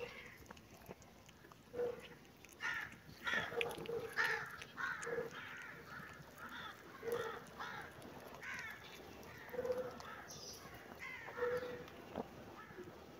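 Kitten meowing again and again, short calls about every second or two.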